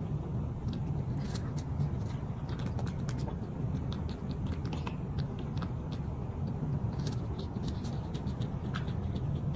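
A cat chewing a dry, hard biscuit, with irregular small crunching clicks, over a steady low rumble.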